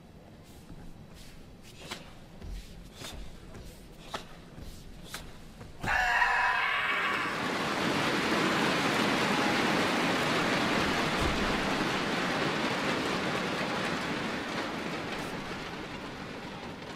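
Sharp snaps of a karate gi with the kata's strikes and stamps, then a loud kiai shout about six seconds in, followed at once by an arena crowd applauding, which slowly fades.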